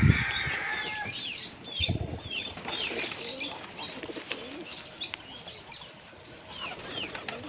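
Pigeons in a loft: wings flap as a pigeon flies up at the start and again about two seconds in, amid repeated quick high bird chirps and soft pigeon cooing.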